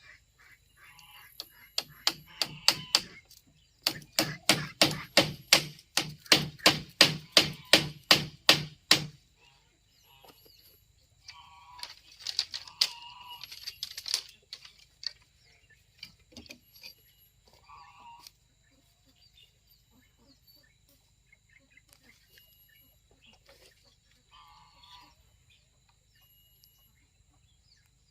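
Hammer blows on wood, a fast run of about a dozen strikes roughly two a second, followed by scattered lighter knocks.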